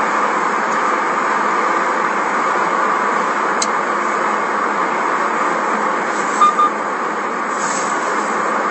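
Steady road and engine noise of a moving car heard from inside the cabin, which is so loud that speech is hard to hear over it. A single sharp click comes about three and a half seconds in, and two short high beeps about six and a half seconds in.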